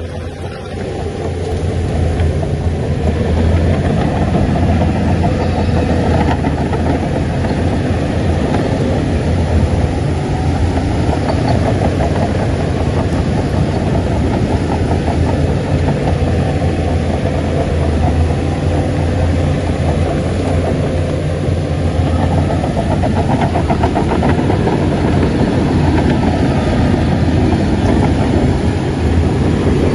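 Shantui crawler bulldozer's diesel engine running steadily under work, growing louder about a second or two in, with the clatter of its tracks.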